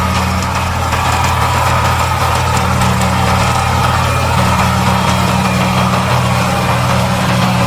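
New Holland TS115 tractor's diesel engine running steadily, with a small shift in its note about two and a half seconds in and again a couple of seconds later.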